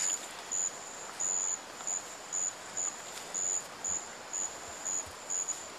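A high-pitched insect call in the rainforest, repeating about twice a second in short buzzes of uneven length, over a steady background hiss.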